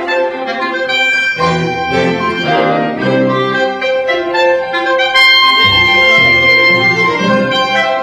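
Orchestral music: a full orchestra playing chords and a moving melody.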